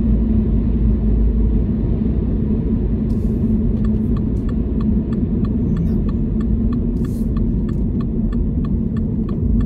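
Steady road and engine noise of a car driving at speed, heard from inside the cabin: a constant low rumble with a hum. From about four seconds in, a regular ticking of about three clicks a second joins it.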